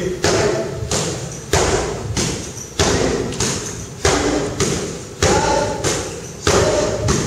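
Strikes landing on hanging punching bags: six sharp thuds at an even pace, about one every second and a quarter, each ringing on in the echoing hall.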